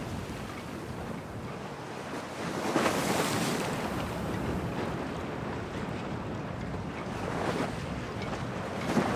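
Stormy sea wind and waves at a harbour: a steady rush that swells about three seconds in, again about seven and a half seconds in, and most sharply near the end.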